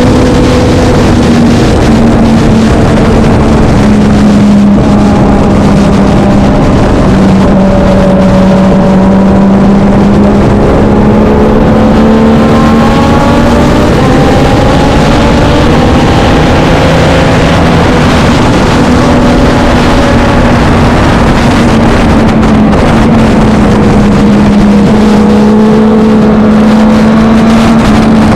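Racing motorcycle engine running hard and continuously, its pitch rising and falling a little with throttle and gear changes.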